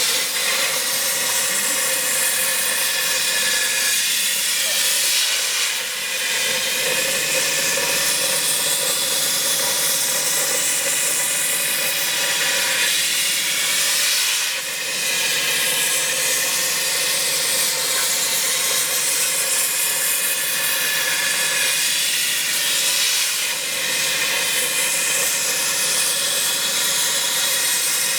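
Steady loud hiss of a CNC square-tube cutting machine's torch cutting steel, with several steady tones over it. The sound dips briefly three times, roughly every eight to nine seconds.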